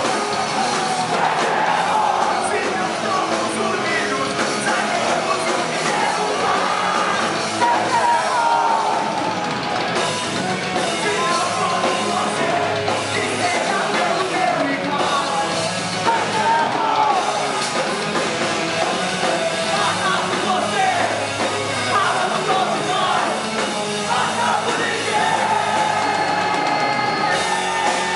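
Hardcore punk band playing live: electric guitar, bass guitar and drum kit under a lead vocalist singing into a handheld microphone.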